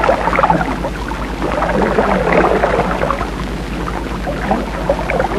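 Water splashing and churning, irregular and steady in level, over a constant low hum on the old soundtrack.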